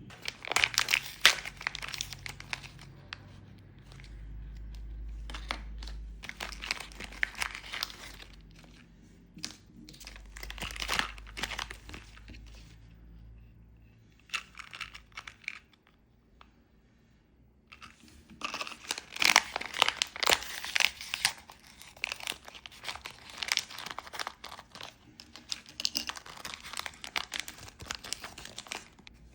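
Small plastic packaging being crinkled and torn open by hand, typical of opening Mini Brands bags. It comes in several bursts of crackling with short pauses between them, the longest and loudest burst in the second half.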